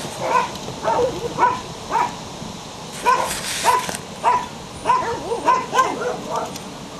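Belgian Shepherd puppy yipping: about a dozen short, high-pitched barks in quick succession, some rising then falling in pitch.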